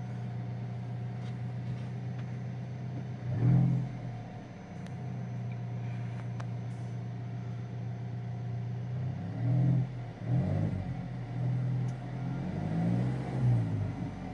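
Alfa Romeo 4C Spider's 1.75-litre turbocharged four-cylinder idling, heard from inside the cabin. It is blipped once about three and a half seconds in, then given a quick series of revs in the last five seconds, each rising and falling back to idle.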